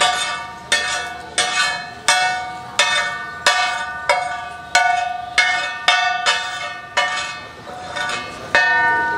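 Metal spatula striking and scraping a large flat iron tawa griddle while pulav is gathered off it. Each stroke gives a ringing metallic clang that dies away, repeating about every 0.7 seconds.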